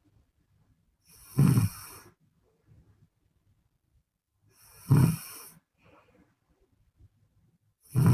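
A woman snoring in her sleep: three loud snores about three and a half seconds apart, each lasting about a second, the third starting near the end.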